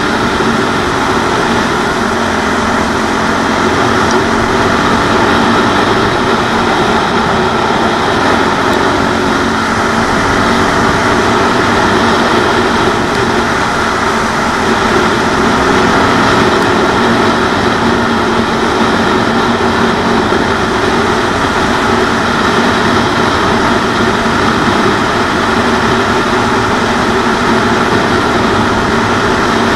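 CCM 644 R30 supermoto's 644 cc Suzuki single-cylinder engine running at a steady cruise, its pitch drifting a little with speed, under heavy wind rush on the helmet-mounted microphone.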